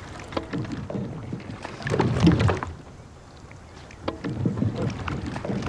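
Oars splashing and churning water as a lone rower pulls a rowing shell, with small knocks from the oars. There is a louder surge of splashing about two seconds in and another from about four seconds in.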